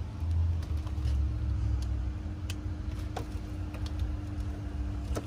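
Car engine running steadily with the hood open, a low even hum with a few faint scattered ticks.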